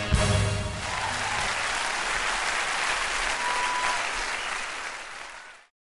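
A brass band's last chord ends within the first second, then an audience applauds, with a short whistle about halfway through. The applause fades out near the end.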